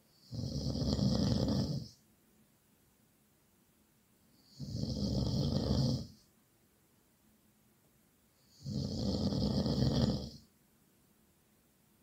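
Loud snoring: three long snores about four seconds apart, each lasting a second and a half or more, with quiet between them.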